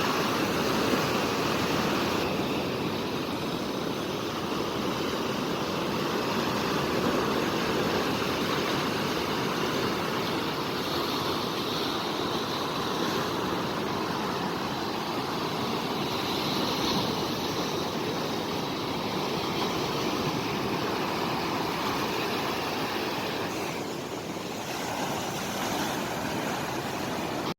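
Steady rushing of water, a continuous even wash that eases slightly about 24 seconds in.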